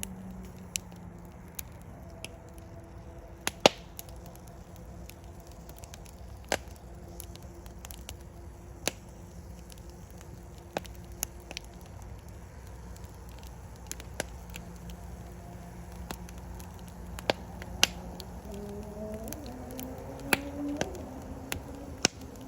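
Wood fire burning in a fireplace: a steady low rumble of flame, broken by irregular sharp pops and crackles every second or two, the loudest about three and a half seconds in.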